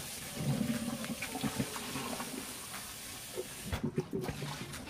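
Kitchen tap running into a stainless steel sink while eggplants are rinsed in a bowl under the stream, with splashing and small knocks of the vegetables and bowl. The running water stops near the end, followed by a few knocks as the bowl is handled.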